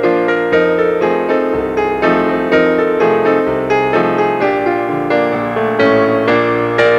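Piano music with a steady beat.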